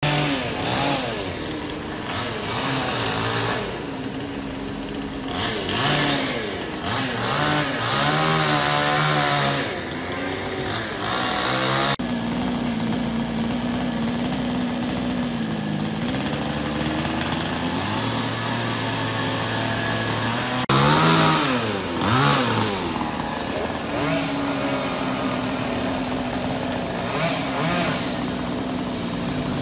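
Gasoline chainsaw running while cutting tree limbs, its engine revving up and down in pitch and settling into steadier stretches.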